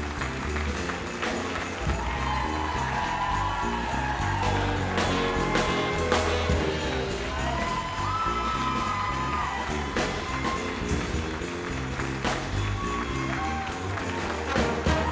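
Big band jazz music playing, a steady beat carried by bass and drums under held melody notes.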